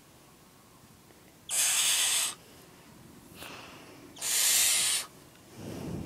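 Nine-week-old barn owl chick giving its hissing begging call: two long rasping hisses a little under three seconds apart, with a fainter one between them. A low rumbling handling noise comes near the end.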